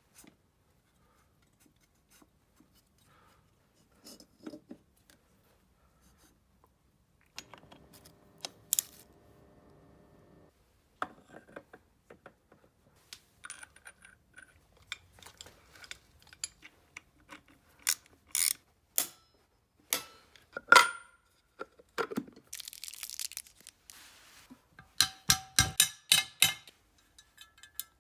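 Scattered clicks and metallic clinks of tools and parts being handled during a motorcycle rebuild, with a steady hum for about three seconds early on, a short hiss later, and a quick run of clicks near the end.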